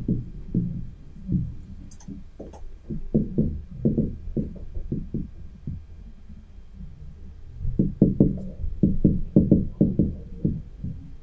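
Marker pen writing on a whiteboard: quick runs of dull taps and strokes against the board, in two bursts with a short pause between them.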